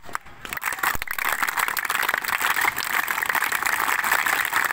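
A large group of people clapping: many hands together in a dense, steady round of applause.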